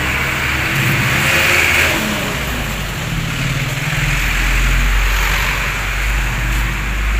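A motor vehicle's engine running steadily, its pitch shifting a little about halfway through.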